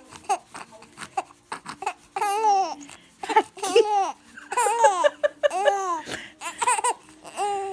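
Baby laughing and babbling while being tickled: a run of short, high-pitched squeals and giggles that rise and fall in pitch, with brief pauses between them.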